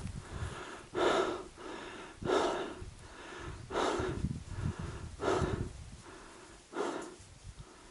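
A person breathing hard and audibly, one heavy breath about every second and a half.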